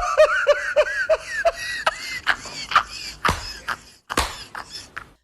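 A person laughing in a quick run of short, high-pitched bursts that trail off, with several sharp clicks in between.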